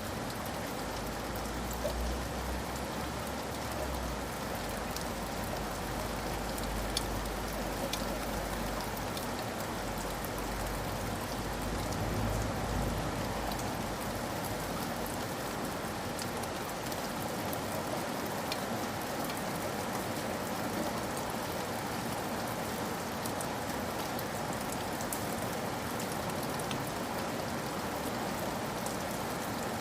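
Steady rain pattering on a cabin roof, with scattered individual drop taps. A low rumble of distant thunder sits under the rain through the first half, swells near the middle, then fades out.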